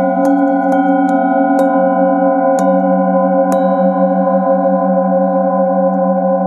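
Several metal singing bowls ringing together in long, overlapping tones, the lowest one pulsing slowly. A few light mallet strikes on the bowls fall in the first three and a half seconds, and the ringing carries on unbroken after them.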